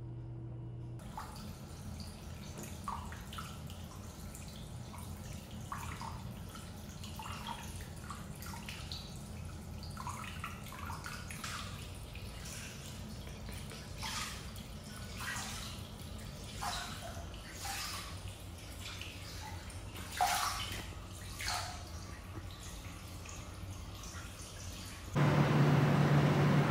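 Hot-spring bath water: scattered drips and small splashes as feet move in the tub, over a steady low hum. Near the end it cuts to a louder, different background with a short falling run of chirps.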